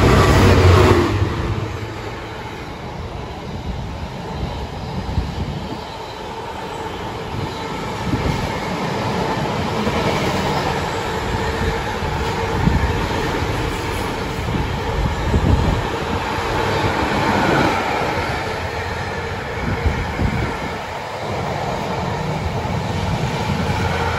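A Freightliner Class 66 diesel locomotive, with its two-stroke V12 engine, passes at the start with a loud low engine hum. A long train of container flat wagons follows, rolling past with a steady rumble and the wheels knocking over the rail joints.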